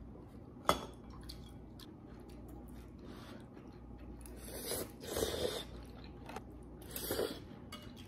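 Quiet sounds of someone eating noodles from a ceramic bowl. Metal cutlery clinks sharply on the bowl once, about a second in, and a few soft slurping and chewing sounds follow in the second half.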